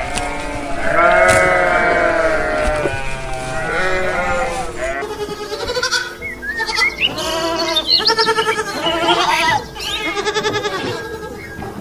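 Sheep bleating: one long baa and a few shorter ones. About halfway through, a herd of goats takes over with many short, shaky bleats in quick succession.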